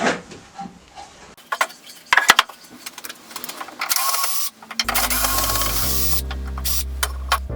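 Clicks and knocks of metalwork on the saw fence, with a short buzzing mechanical burst about four seconds in; then background music comes in about five seconds in.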